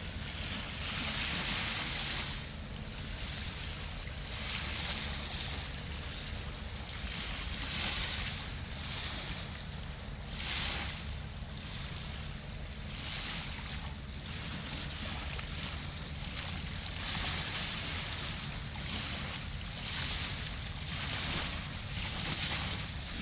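Small river waves washing against the bank, a hiss that swells and fades every second or two, over a steady low rumble.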